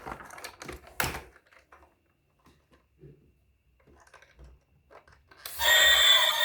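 A few light clicks and knocks, the loudest about a second in, then faint scattered ticks. Music starts about five and a half seconds in.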